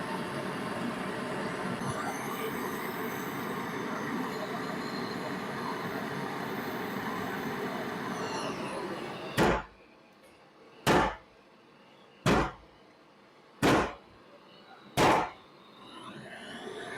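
A steady, rumbling mechanical noise, which stops and gives way to five sharp, loud knocks, evenly spaced about a second and a half apart.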